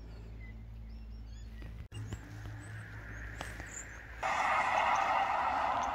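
Small birds chirping over a deep, steady low rumble that shakes the ground, which she takes for a tractor driving somewhere. About four seconds in, a louder steady hiss comes in over the chirps.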